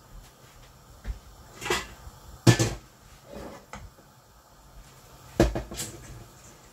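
Several sharp kitchen knocks and clunks, such as a cupboard door or cookware being handled, the loudest two about two and a half and five and a half seconds in.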